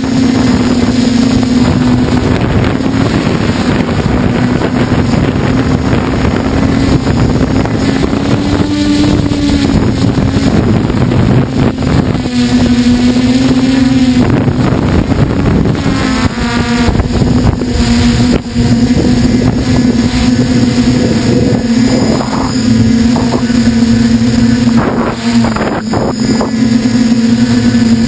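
Motors and propellers of a radio-controlled camera aircraft droning steadily at one pitch, lifting slightly in pitch a few times, with wind rushing over its microphone.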